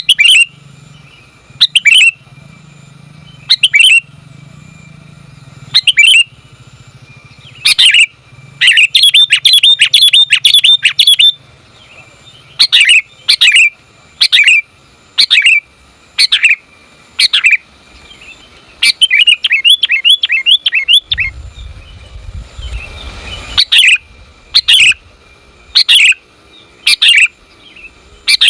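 Female sooty-headed bulbul (kutilang) calling: short sharp chirps repeated about once a second, broken twice by a longer rapid chattering run, around 9 to 11 s in and again around 19 to 21 s. A brief low rumble sounds a little after the middle.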